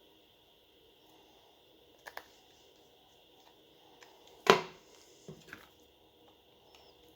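Small hard clicks and knocks from handling a smartphone during reassembly: a quick double click about two seconds in, a sharper knock about halfway through, then a couple of lighter clicks, over a steady faint hiss.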